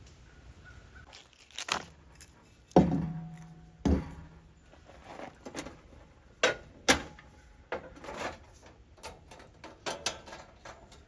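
Knocks, clunks and light rattles of gear being handled and set down: a loud thump about three seconds in rings briefly and low, another knock follows a second later, two sharp hits come near the middle, then a run of lighter clicks.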